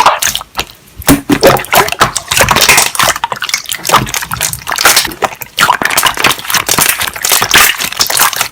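Slime being squeezed and pressed by hand, giving dense, wet crackling and popping clicks, a little quieter for a moment just before a second in.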